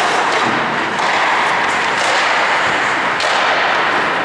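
Ice hockey play: skates scraping and carving the ice, with a few sharp knocks of sticks and puck, about three seconds in the clearest.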